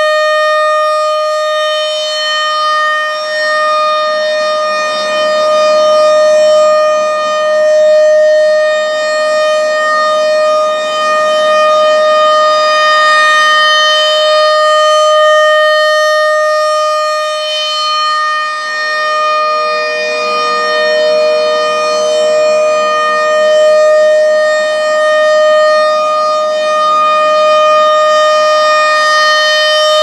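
American Signal RM-130 rotating mechanical siren sounding a steady single-pitch tone at full speed. Its loudness swells and fades about every seven seconds as the rotating horn sweeps past.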